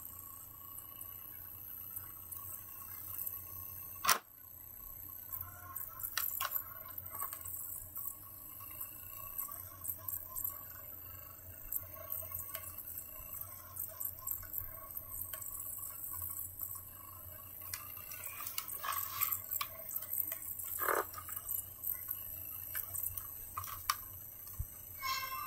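Handling noises of a portable DVD player: scattered small clicks and rustles as its lid is opened and the disc handled, with one sharp click about four seconds in, over a low steady hum.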